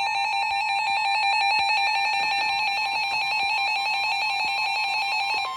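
Weather-radio emergency alert alarm: a loud electronic warble of rapidly alternating high beeping tones with steady regular clicks. Right at the end it switches to one steady warning tone.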